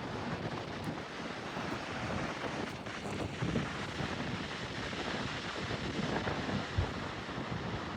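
Sea waves washing in a steady rush, with wind buffeting the microphone.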